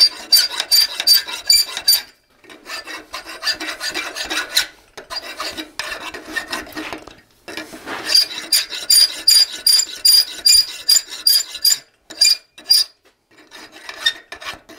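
Hand file stroking back and forth across a half-inch square steel bar clamped in a vise, taking off the burr left by chisel-splitting the bar. Runs of quick scraping strokes with a high ring to them, broken by short pauses about two, seven and a half, and thirteen seconds in.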